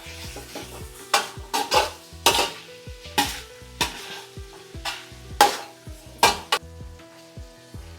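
Repeated scraping and clattering strokes of a utensil working food in a cooking vessel, about ten sharp strokes at uneven intervals, over background music with a steady bass beat.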